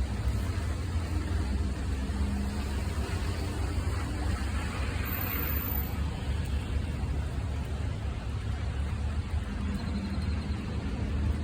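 Steady rain with a deep, continuous low rumble of distant thunder beneath it. The rain's hiss swells briefly about five seconds in.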